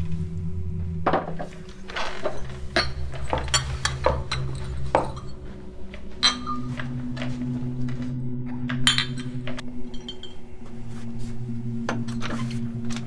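Glass beer bottles clinking and knocking together as they are handled, a string of sharp clinks over several seconds. Low sustained background music plays underneath.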